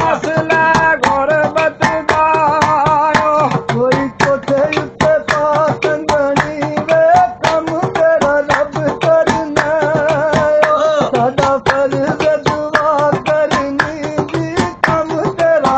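A voice singing a melody with wavering held notes over quick, busy percussion strokes.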